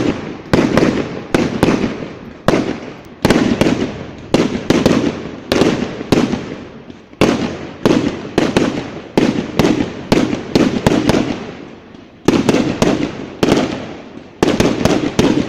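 Fireworks display: aerial shells bursting in quick succession, a sharp bang every fraction of a second to a second, each trailing off in a rumbling echo.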